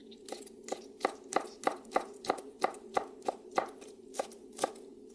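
Chef's knife chopping soaked wood ear mushroom on a wooden cutting board: a steady run of even knife strikes against the board, about three a second.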